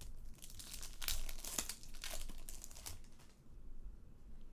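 Foil wrapper of a Bowman Chrome trading-card pack crinkling as it is handled and opened. The crackling lasts about three seconds and then stops.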